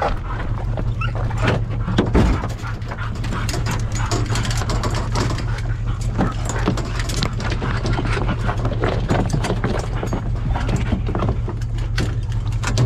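Beagle hounds whining and yipping in a pickup's dog box, with scuffs and knocks of movement throughout, over a steady low vehicle hum.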